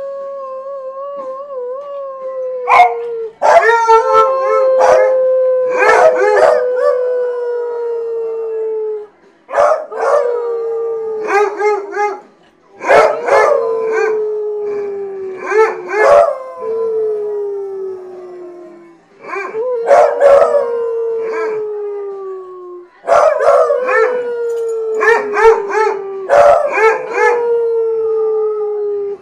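A beagle and a basset hound howling: long drawn-out howls that slide slowly down in pitch, broken by short sharp yelping bays. The howls repeat about six times with brief pauses between them.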